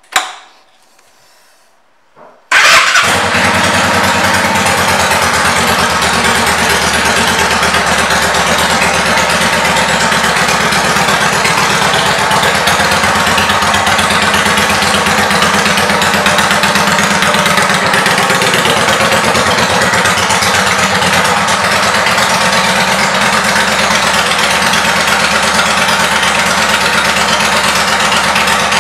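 A sharp click, then about two and a half seconds in the 2000 Yamaha V Star 650 Classic's air-cooled V-twin, fitted with Cobra aftermarket exhaust pipes, starts at once and settles into a steady idle.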